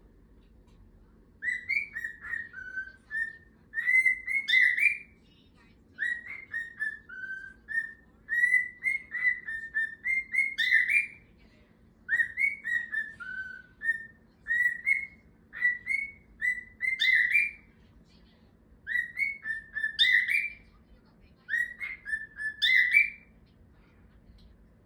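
Male cockatiel whistling a repeated tune in short phrases, one every few seconds. Each phrase is a run of quick clear whistled notes that ends in a sharp upward sweep.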